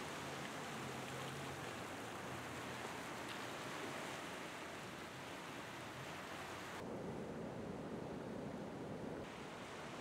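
Sea surf washing over a rocky shore, a steady rushing noise. About seven seconds in it turns duller and lower for a couple of seconds before the hiss returns.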